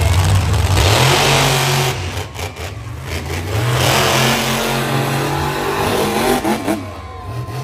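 Monster truck engines revving hard as two trucks race side by side, their pitch rising and falling with loud throttle surges about a second in and again from about four to six seconds, easing off near the end.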